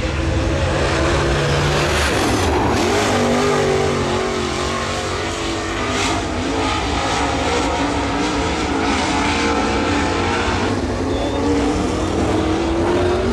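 Dirt late model race cars' V8 engines at full throttle circling a clay oval, the engine note sweeping up and down as the cars go through the turns and down the straights, with a rising pull near the end.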